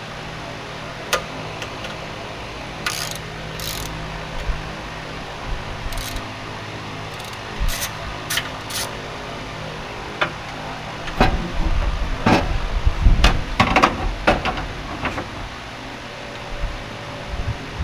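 Scattered clicks, knocks and rubbing of hand tools and metal parts being handled, busiest in a cluster from about eleven to fifteen seconds in. A steady low hum, like a shop fan, runs underneath.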